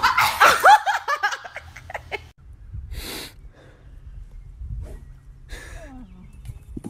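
A woman's high, swooping shrieks and laughter for about the first two seconds, then a quieter stretch with two short rushes of noise, about three seconds apart.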